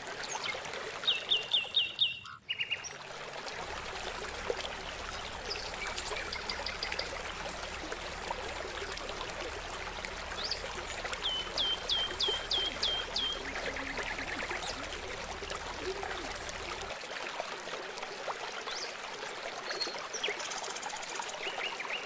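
Water trickling and flowing steadily, with a bird calling in quick runs of five or six short falling notes, three times over.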